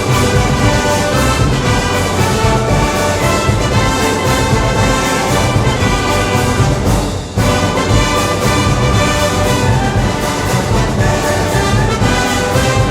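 A brass band playing, with a full sound of trombones and trumpets over a low bass line. The music briefly drops about seven seconds in, then plays on.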